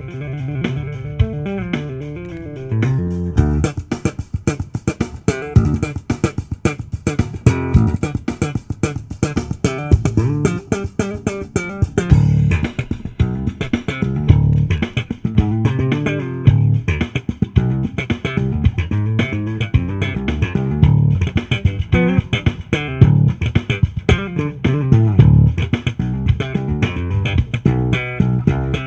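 Recorded music with a prominent bass guitar line, played through the Warwick BC80 bass combo amplifier fed from its line input. It starts thin and fills out with a steady beat about three seconds in.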